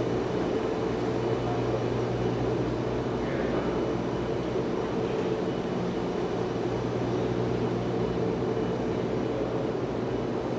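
Steady low mechanical drone of running machinery, an even hum with no breaks or changes.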